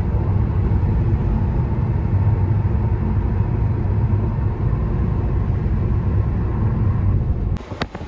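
Steady low road rumble of a car heard from inside the cabin while it drives along a highway. Near the end it cuts off suddenly to a quieter outdoor sound with a few light clicks.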